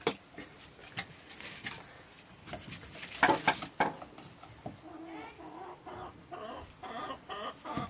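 A chicken clucking in short, broken calls through the second half, after a few sharp knocks and clatters in the first half, the loudest a little past the middle.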